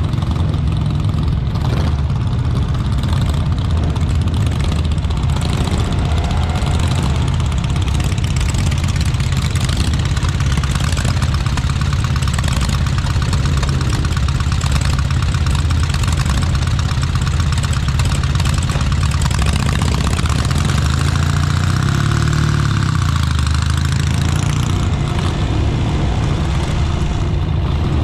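Motorcycle engines running at low speed and idling in a slow-moving group of bikes, a steady low engine note with no break.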